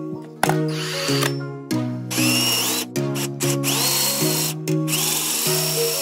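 Drill press running a plug cutter bit into a block of wood, in several short runs with a rising whine as the bit spins up, over background music.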